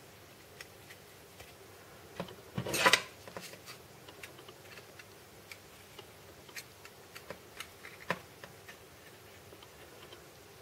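Handling of a Zippo-style petrol lighter: scattered light clicks, with a short, louder metallic clatter about three seconds in and another sharp click near the end.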